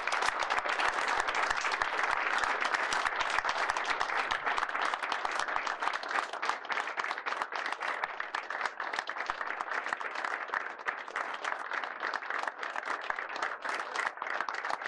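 An audience applauding: many people clapping together, steady and dense, easing off slightly in the last few seconds.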